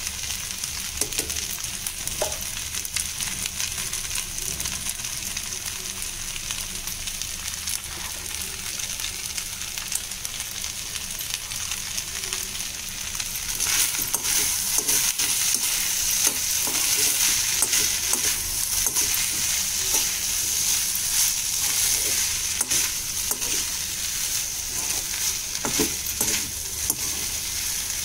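Spiced fried rice sizzling in a kadhai while a metal slotted spoon stirs it, scraping against the pan. The sizzle is a steady hiss that grows louder about halfway through, with more scraping from then on.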